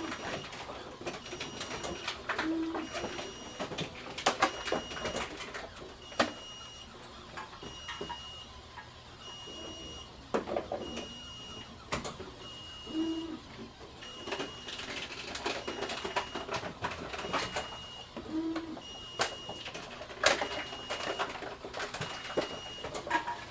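Bottle return machine in a grocery store, with a short high beep repeating about once a second, scattered knocks and clatter of containers, and a short low tone every few seconds.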